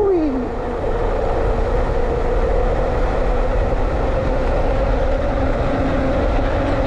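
Electric mountain bike being ridden on a dirt trail: a steady rush of wind and tyre noise, with a faint steady hum underneath. A short whine falls away right at the start.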